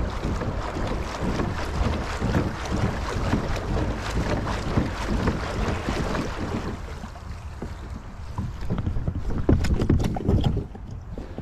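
Wind buffeting the microphone over water sloshing against a kayak hull while a standing paddler rocks the kayak to test its stability. The wind eases about seven seconds in, and a few knocks sound near the end.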